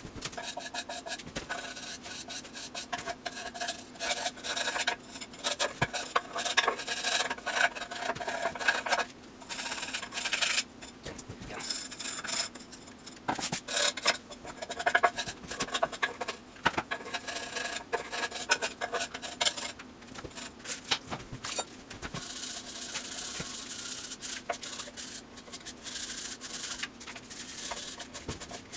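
Irregular rubbing and scraping with scattered clicks and knocks from hand work on the transmission and the felt paper under it, over a steady low hum.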